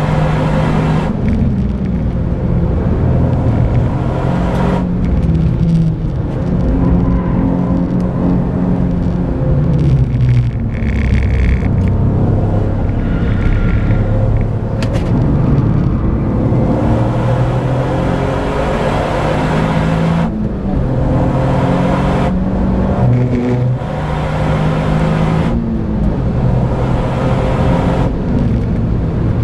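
Toyota GR Yaris's turbocharged 1.6-litre three-cylinder engine driven hard on track, heard from inside the cabin. The engine note climbs and falls with throttle and gear changes and briefly drops away several times, over steady road and tyre noise.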